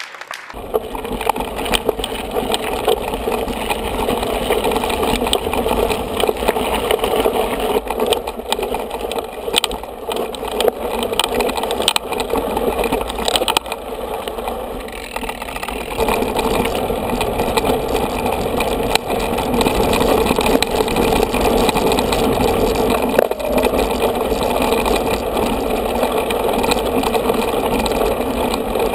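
Mountain bike rolling fast over a gravel forest track, recorded by a camera mounted on the bike: a steady rushing rumble of tyres on gravel, broken by frequent rattles and knocks over bumps.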